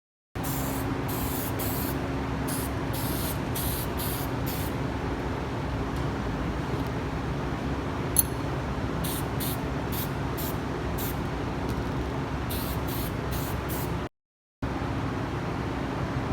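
Aerosol spray-paint cans sprayed in short bursts, about fifteen of them, each a fraction of a second, over a steady low hum; a sharp click about eight seconds in.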